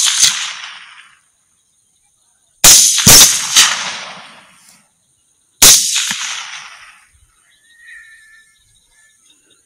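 Rifle shots at hogs: a quick run of three shots about half a second apart, then one more about two seconds later, each followed by a long rolling echo.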